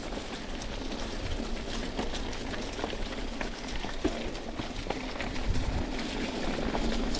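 Mountain bike riding on a dirt trail: tyres crunching over grit with many scattered small clicks and rattles, over a low rumble of wind on the helmet camera's microphone.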